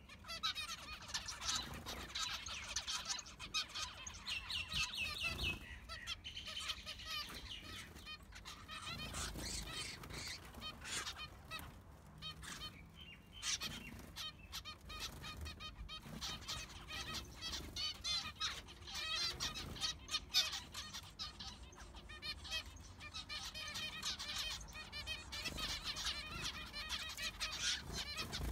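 Zebra finches calling, a steady stream of many short, overlapping chirps and beeps from several birds at once.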